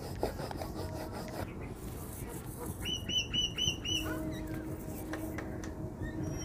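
A bird calling: a quick run of about five short chirps about three seconds in, over faint clicks and scrapes.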